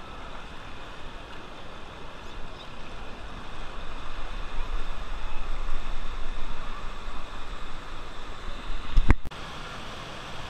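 River water splashing and rushing around wading bathers, with faint voices and a low buffeting rumble on the microphone that grows louder midway. A sharp click about nine seconds in is followed by the steadier rush of a waterfall.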